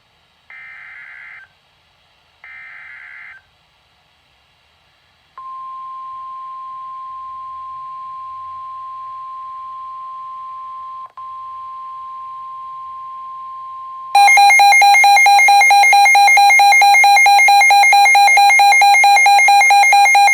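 NOAA Weather Radio emergency alert: the last two bursts of the screechy SAME digital header, then the steady single-pitch 1050 Hz warning alarm tone for about nine seconds. About 14 seconds in, a weather alert radio's own built-in alarm takes over, beeping rapidly at several pitches and much louder, signalling that a warning has been received.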